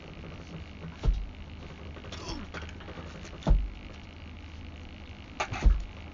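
Four dull, heavy thumps over a low steady hum: one about a second in, one near the middle, and two close together near the end.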